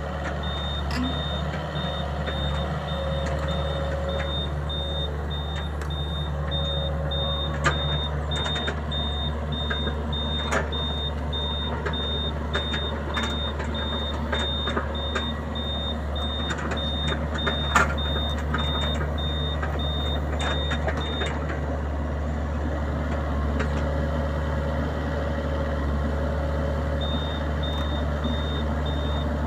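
A diesel engine running steadily while a high-pitched backup alarm beeps about twice a second. The beeping stops for several seconds and starts again near the end. A few sharp metallic knocks come through, the loudest about two-thirds of the way in.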